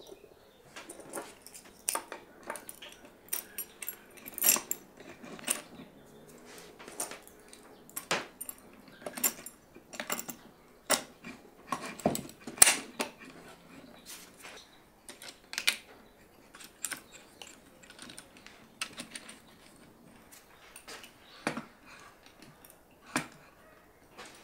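Irregular metal clinks and knocks from aluminium linkage bars and bolts being handled and fitted onto a plywood clamp mechanism, some with a short metallic ring; the sharpest knock comes about halfway through.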